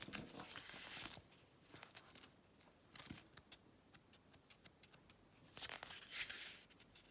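Tarot cards being handled in a flip-through. A soft sliding swish comes at the start and again about six seconds in, with light clicks and taps of the cards in between.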